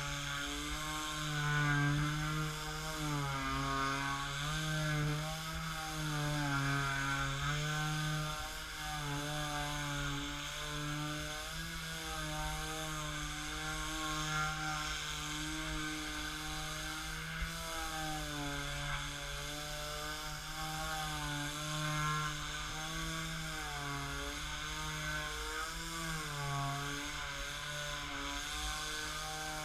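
Black & Decker KA168K mouse detail sander running while sanding a wooden tabletop: a steady motor buzz with the sanding pad scrubbing on the wood, its pitch dipping and rising a little as the sander is worked over the surface.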